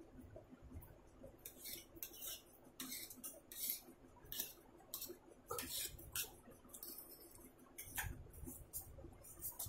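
A metal fork scraping and clinking against a plate as chow mein noodles are gathered up, in many short, sharp strokes.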